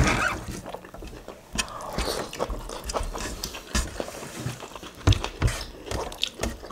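Close-up mukbang eating sounds: mouths chewing and smacking on rice soaked in spicy stew, with fingers scraping and picking at rice on a metal tray, in irregular wet clicks. A louder knock about five seconds in.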